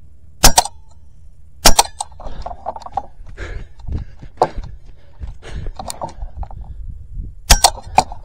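Edgun Leshiy 2 .25-calibre PCP air rifle firing a few sharp shots, about half a second in, near two seconds, and a quick cluster near the end, with clicks and rattles of handling between the shots.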